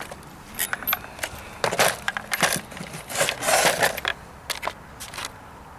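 Handling noise as a car part is screwed back on: sharp clicks and knocks of metal and plastic, with a few short scraping rustles about two and three seconds in.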